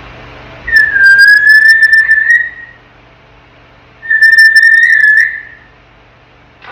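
African grey parrot whistling: two long, nearly level whistles of about two seconds each at one steady pitch, the first dipping slightly as it starts.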